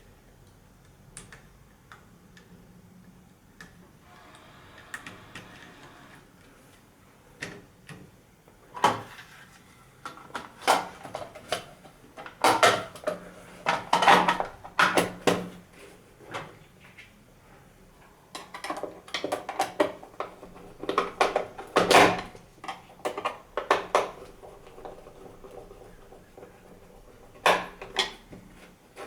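Hands working alarm-panel hardware: a run of irregular clicks, taps and knocks, fairly quiet at first, then busiest in the middle and again near the end.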